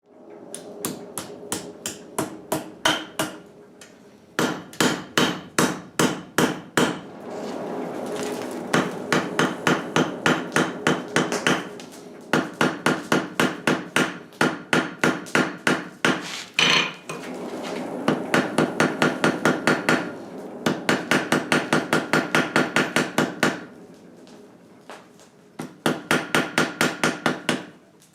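Blacksmith's hammer striking metal on an anvil in quick runs of blows, about three a second, with short pauses between runs. The anvil rings between strikes.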